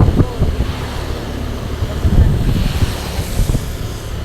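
Truck engine running with a steady low hum, wind buffeting the microphone, and a few low knocks near the start and about two seconds in.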